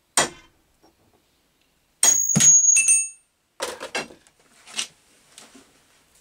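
Hammer blows on a steel drift, knocking a taper arbor out of a drill chuck held in a vise. There is one sharp strike, then a few hard strikes about two seconds in with a high metallic ring. Lighter knocks and metal clatter follow.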